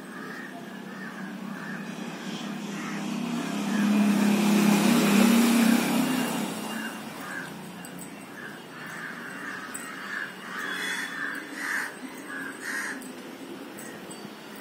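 Birds calling over and over in short, repeated calls, with a vehicle rumbling past that swells and fades about four to seven seconds in.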